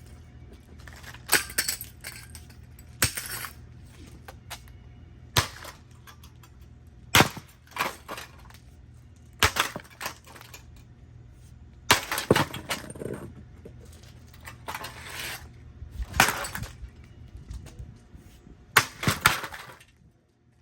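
An aluminum broom handle smashing a Heritage five-blade ceiling fan: about a dozen sharp hits spaced irregularly, one to three seconds apart. A few of them are followed by a short clatter of breaking parts.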